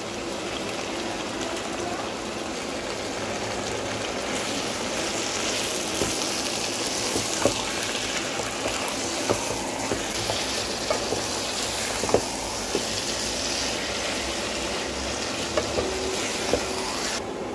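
Beef pieces and spice paste sizzling steadily in a nonstick pot as they are browned in the masala (the kasha stage of a beef curry). Now and then a spatula stirs them, scraping and knocking against the pot.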